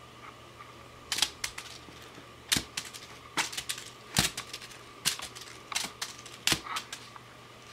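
Sharp, irregular clicks and taps as a hand flicks and pushes a crumpled foil ball around the floor of a box, coming in quick clusters from about a second in until near the end.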